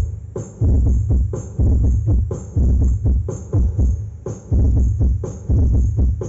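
Bass-heavy electronic dance music played loud through a large 'sound horeg' loudspeaker rig during a sound check, with a heavy bass hit about once a second.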